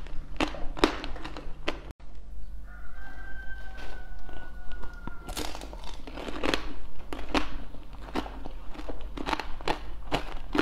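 Crunching bites and chewing of candied strawberries (tanghulu), the hard sugar glaze cracking in quick, sharp crackles. Between the crunches, a few seconds in, a faint long tone falls slightly in pitch.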